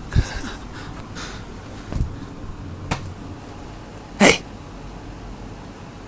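Handling noise from a phone moving against a blanket, with a couple of low thumps and a click, then a single short, sharp burst of noise about four seconds in.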